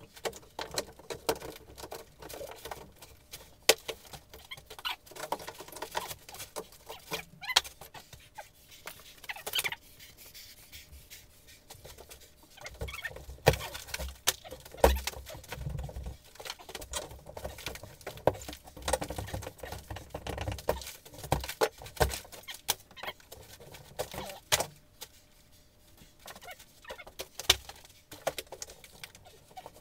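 Drywall being torn off wall studs by hand: irregular cracking, snapping and crumbling of the board, with heavier thumps now and then as pieces are pulled free and dropped.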